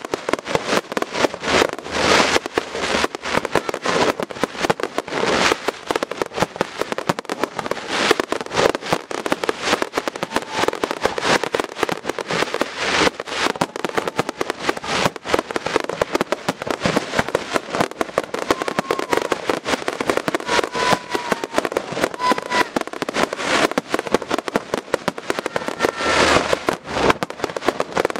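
Aerial fireworks in a dense barrage: shells bursting in rapid, overlapping bangs and crackles with no pause, briefly heavier about two seconds before the end.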